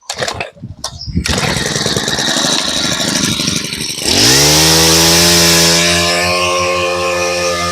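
Makita four-stroke brush cutter engine test-started, running unevenly at low speed, then throttled up about four seconds in and held at a steady high speed.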